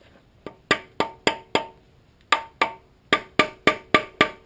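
Hammer tapping a seal-cutter tool in along the oil pan seam of a VQ35DE engine, cutting through the old sealant. Sharp metallic taps, each ringing briefly: a run of five, a short pause, two more, then a steady run of about four a second.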